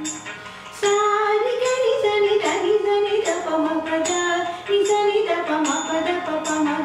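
A woman singing a Carnatic vocal phrase in raga Kalyani over a steady drone, entering about a second in and gliding between held notes.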